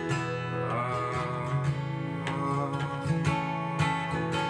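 Steel-string acoustic guitar strummed, its chords ringing under repeated strokes in a steady song rhythm.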